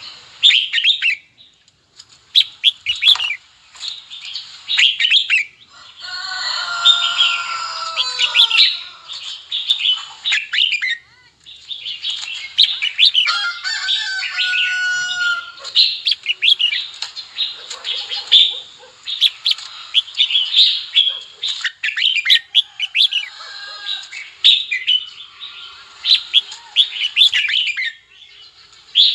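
Red-whiskered bulbuls singing and calling in quick runs of short, high chirps, with two longer, harsher calls about a quarter and half way through. This is bulbul song used as a lure to excite caged birds and call in wild ones.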